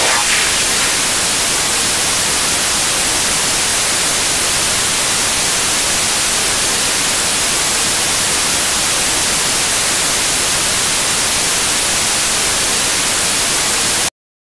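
Loud, steady static hiss like white noise, brightest in the high end, that cuts off suddenly near the end.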